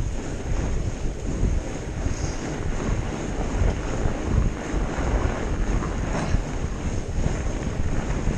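Wind buffeting the microphone of a camera riding along on a fat bike on a snowy trail, a steady low, gusting rumble.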